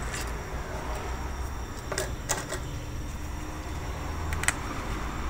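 Three light clicks of small metal transmission parts being handled against the cast iron Powerglide case: two close together about two seconds in, one near the end, over a steady low hum.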